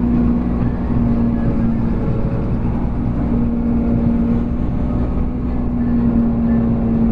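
Trail-grooming vehicle's engine running steadily, a constant hum at an unchanging pitch.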